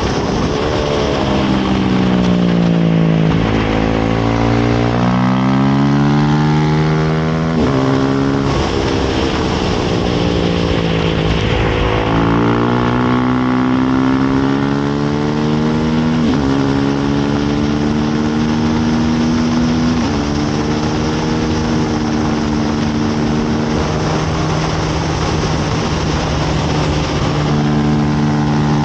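Yamaha R1 race bike's inline-four engine heard onboard at racing speed, with wind rush underneath. The revs fall as it slows for a corner, then climb in a series of rising sweeps, each ending in a sudden drop as it shifts up while accelerating hard.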